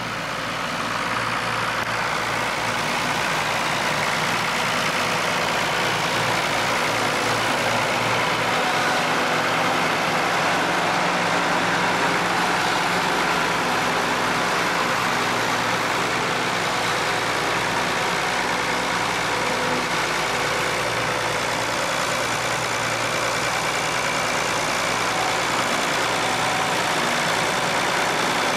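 Farm tractor engine running at a steady speed, growing louder over the first second or two and then holding steady.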